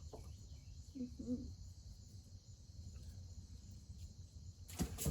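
Faint steady chirring of crickets over a low rumble, with a short voice-like sound about a second in and a loud rustling knock near the end.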